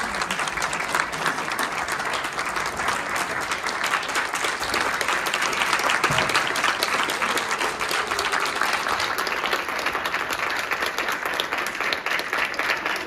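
A roomful of people applauding: many hands clapping in a dense, steady ovation.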